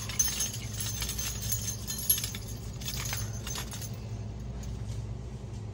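Small hanging Christmas ornaments being handled, clinking and lightly jingling against each other and their display hooks in quick, irregular clicks, thinning out near the end. A steady low hum runs underneath.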